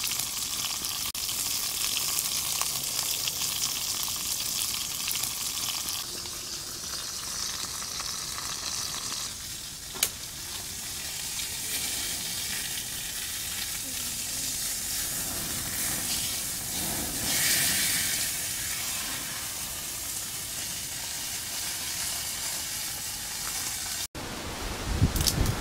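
A whole snake frying in a pan over a wood fire: a steady sizzling hiss, with a sharp click about ten seconds in. Near the end a loud low rumble comes in.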